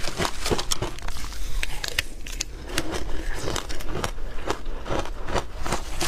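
Mouth biting and chewing powdery ice dusted with matcha powder: a quick run of crisp crunches and crackles.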